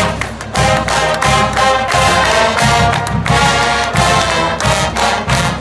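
Marching band playing a loud, brass-led piece with a steady beat.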